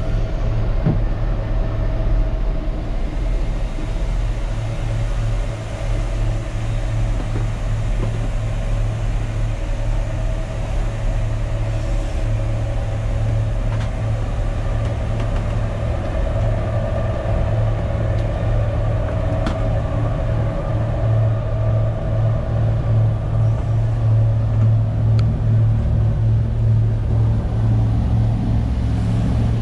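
Inboard engine of a 1955 Chris-Craft Corsair cruiser running steadily under way, a loud, even low drone heard through the cabin.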